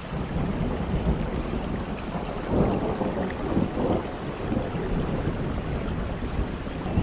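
Steady rain falling, with a low rumble of thunder that swells about two and a half seconds in and then eases.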